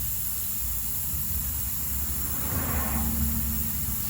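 Steady low rumble with a high hiss, and a brief rasping noise about two and a half seconds in.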